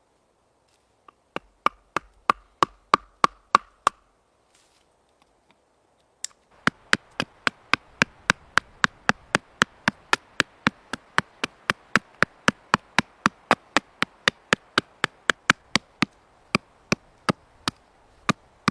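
Knife chopping on a cutting board in quick, even strokes, about three a second: a short run of strokes, a pause of about two seconds, then a long steady run.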